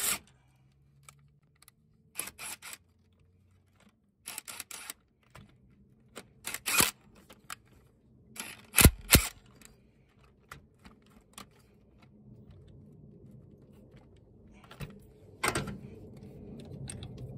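Ridgid cordless impact wrench hammering on the crank pulley bolt in several short bursts with quiet pauses between, working the tight crank bolt loose.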